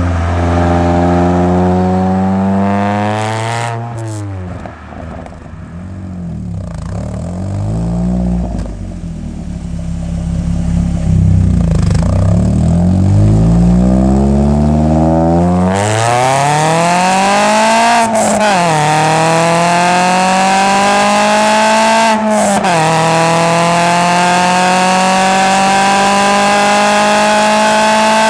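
Exhaust of a Mk6 Ford Fiesta ST's 2.0-litre four-cylinder, decatted and fitted with a Powerflow backbox, heard close at the tailpipe while the engine is revved while stationary. Revs held up, then dropping back about 4 s in and wavering low. About 16 s in the engine is revved quickly and held high, with two brief dips, each marked by a sharp crack.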